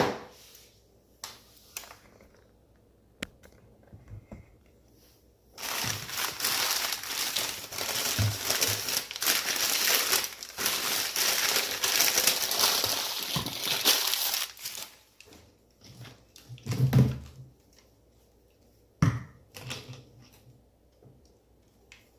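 Packing material in a shipping box being crumpled and rustled by hand as the box is unpacked: a dense crinkling that starts about six seconds in and lasts about nine seconds, with a few short knocks before and after it.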